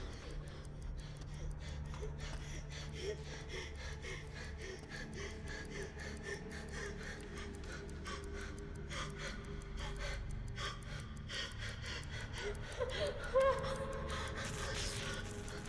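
A woman's frightened, gasping breaths, which grow into a loud gasping whimper about 13 seconds in, heard over a steady fast ticking and a low drone.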